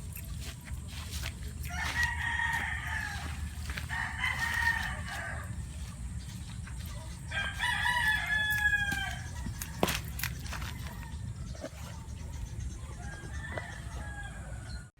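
Rooster crowing three times, the third crow longer with a falling end, then a fainter call near the end, over a steady low rumble.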